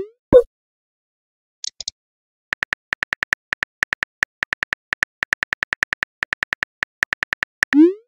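Phone messaging app sound effects: a rising whoosh of a message being sent and a pop at the start, then about five seconds of rapid on-screen keyboard clicks as a message is typed, and another rising send whoosh near the end.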